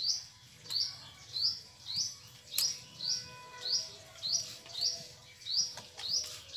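A bird repeating one short, high chirp over and over, about one every two-thirds of a second.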